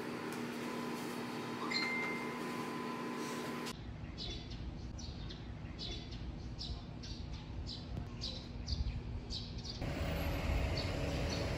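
A bird chirping over and over, about two short high chirps a second, over a low outdoor rumble. It follows a few seconds of steady indoor room hum.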